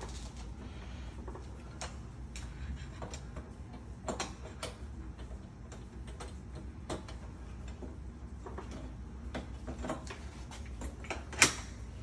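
Irregular small clicks and taps of a screwdriver and metal lock parts as a mortise lock is fitted, with one sharp, louder click near the end.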